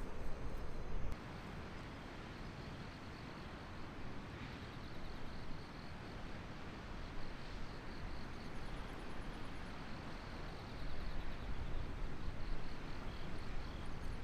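Wind rumbling and buffeting against the microphone, louder for the first second, with insects chirping faintly in a steady pulsing pattern behind it.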